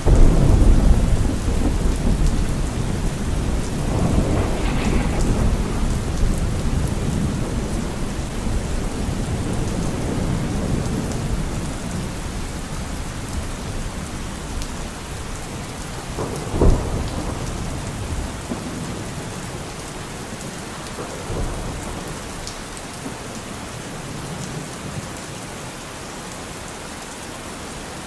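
Steady rainfall with thunder: a loud deep rumble right at the start, another around four seconds in, a sharper clap about sixteen seconds in and a softer one a few seconds later, the rumbling dying down toward the end.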